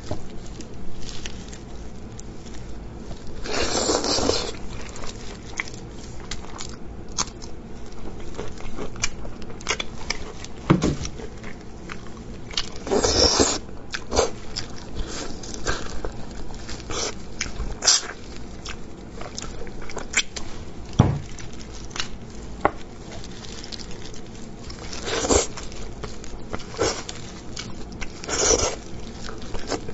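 Close-up eating: wet chewing and smacking as braised pork rib meat is torn from the bone and eaten by hand in plastic gloves. Many short clicks, with a few longer, louder noisy bursts spread a few seconds apart.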